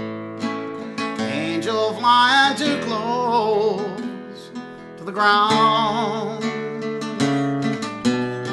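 Nylon-string acoustic guitar played fingerstyle in the instrumental break of a country ballad: a picked melody over bass notes, with wavering bent notes twice partway through.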